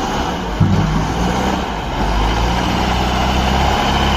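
Heavy engine idling, a steady low rumble with a hum that strengthens about half a second in.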